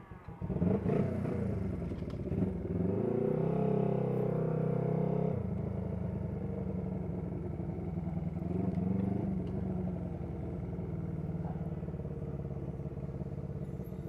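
Honda CB125T's small air-cooled parallel-twin engine starting about half a second in and revving. It holds higher revs for a few seconds, then drops suddenly to a steady lower running note.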